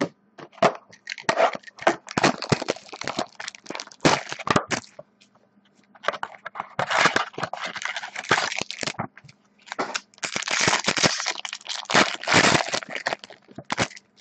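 Plastic trading-card pack wrapper crinkling and tearing in runs of crackles, in three bursts with short pauses about five and nine seconds in.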